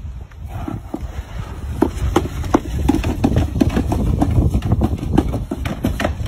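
Hard plastic sled dragged by a dog over wooden steps, pavers and dirt: a rough scraping with a string of sharp, irregular knocks as it bumps over the edges, thickest in the second half.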